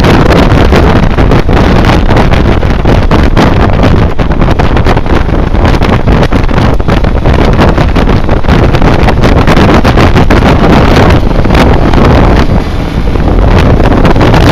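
Wind buffeting hard on the microphone over the running inline-four engine of a BMW K1200R Sport motorcycle at road speed, heard from on the bike. The level dips briefly near the end.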